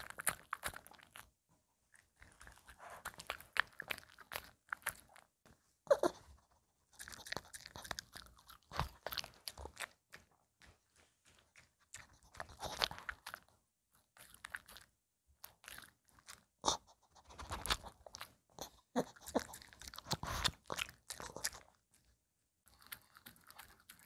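Small dog (a Maltese) chewing and crunching food, with bursts of wet chewing and bites broken by short pauses.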